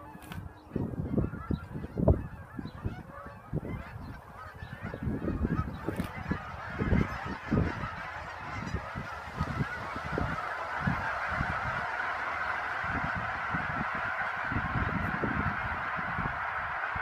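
A large flock of geese honking, a dense overlapping din that swells about ten seconds in as the flock takes flight. Irregular low buffeting on the microphone is loudest through the first half.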